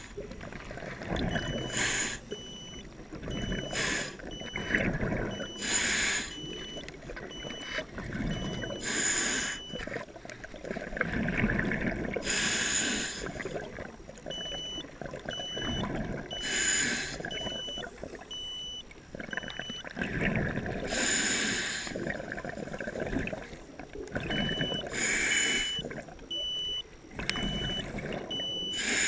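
Scuba breathing through a regulator underwater: a hissing inhale every two to four seconds, with low bubbling rumbles of exhaled air between them. A faint, high electronic beep repeats a few times a second in stretches.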